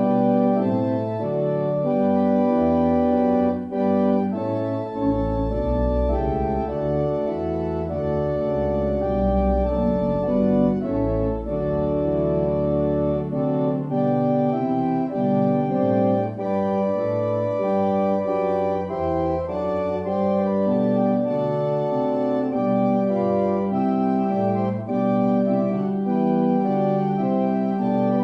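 Organ music played as the offertory: chords held steady and changing in turn, with a deeper bass line sounding about a third of the way through.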